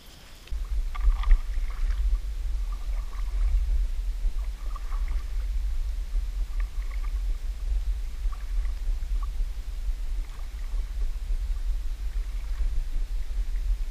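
A kayak being paddled through calm water: a steady low rumble that sets in about half a second in, with faint light splashes and drips from the paddle blades.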